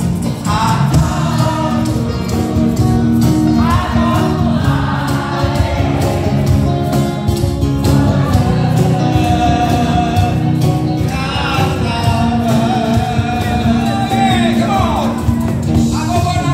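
Live band music with a male lead singer holding long, gliding sung phrases over the band.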